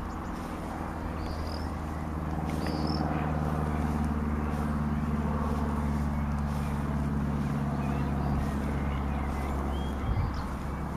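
Steady low engine hum of a motor vehicle, growing louder a couple of seconds in and holding. A few short bird chirps sound over it.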